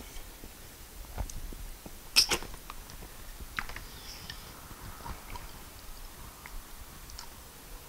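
Close-up eating sounds of fufu eaten by hand: scattered wet mouth clicks and smacks as she chews, with fingers working the sticky fufu in peanut soup. The loudest smack comes about two seconds in.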